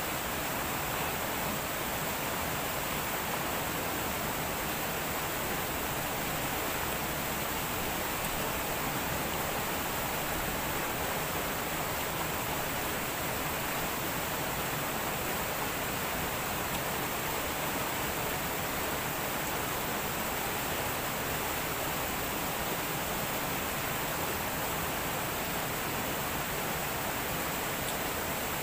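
Steady rush of water flowing over the rocks of a shallow stream.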